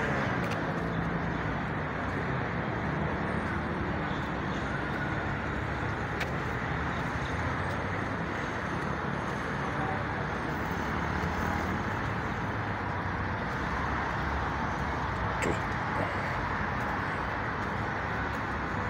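Steady hum of distant city road traffic, with a brief knock late on.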